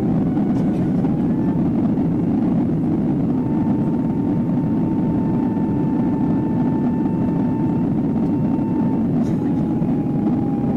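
Boeing 767-300ER cabin noise over the wing during the initial climb after takeoff: steady jet engine noise at climb power. A thin whine runs above it, rising slightly in pitch about a second in and stepping back down near the end.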